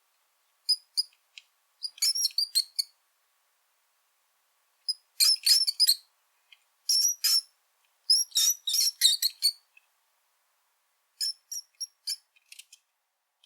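Brown rat squeaking: quick runs of short, high-pitched squeaks, several at a time, in about six bouts separated by silent pauses.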